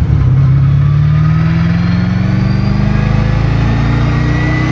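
Twin-turbocharged V8 of a 1995 Callaway Corvette accelerating, heard from inside the cabin, its pitch climbing steadily as the revs rise. A thin high whine rises along with it.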